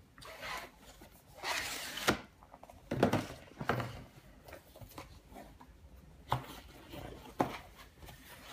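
Cardboard packaging being handled and opened on a wooden table: a scraping rustle about a second and a half in, then several sharp knocks and taps spread through the rest.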